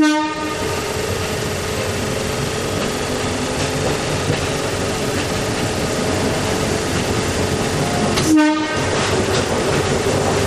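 Fukui Railway F10-class streetcar running, with steady motor and wheel noise under a held hum. Two short horn toots, one right at the start and another about eight and a half seconds in, stand out above it.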